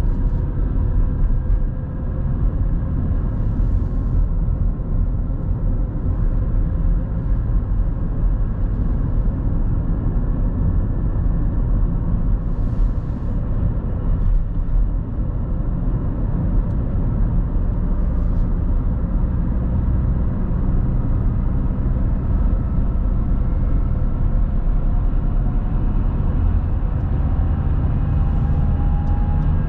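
Steady road and engine noise of a car driving on a highway, heard from inside the cabin: a continuous low tyre and engine rumble with a faint hum above it that slowly rises in pitch near the end.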